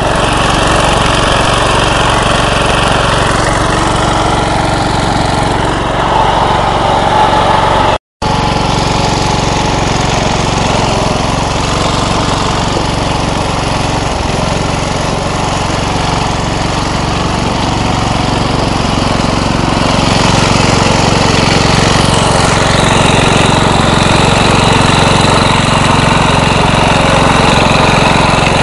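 MTD riding lawn mower engine running steadily. It cuts out for an instant about eight seconds in and gets a little louder about twenty seconds in.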